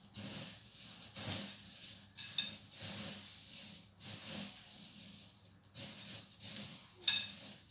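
Crisp puffed rice (muri) rustling and crackling as a hand stirs and turns it in a glass bowl, with a sharper crackle about two seconds in and again near the end.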